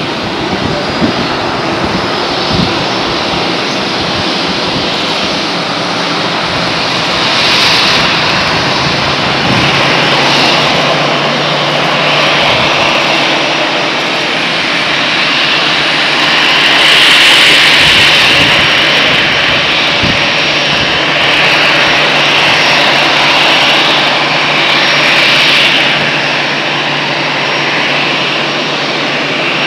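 Jet airliner engines running steadily with a low hum under them, swelling in loudness several times and loudest around the middle.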